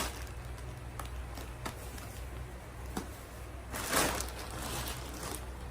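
Light handling noise from unpacking a purchased garment: a few soft clicks and ticks, and a short rustle of packaging just before four seconds in, over a low steady hum.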